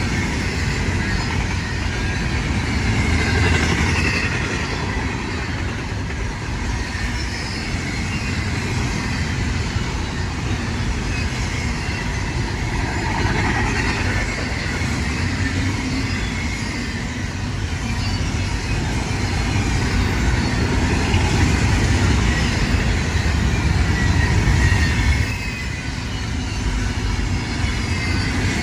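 Freight train rolling past: a steady, loud rumble of steel wheels on rail that runs on without a break.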